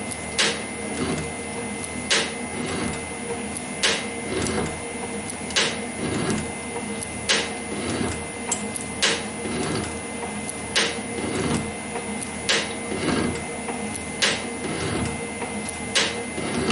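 Metal shaper running at about 30 strokes a minute, cutting with a carbide insert tool: a steady hum with a sharp click about every 1.7 s, one per stroke, and a horrible rough sound on the cut. The rough sound comes from a cutting-tool geometry that is not ideal for the work, with the chip not well formed.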